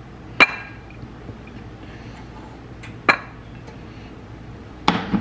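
A wooden spoon knocking on a saucepan and a ceramic plate as rice is served: four short clinks, spaced a second or two apart, the last two close together near the end.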